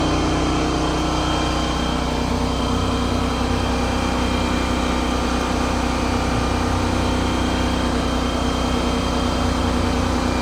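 Steady machine hum with several fixed tones, unchanging throughout.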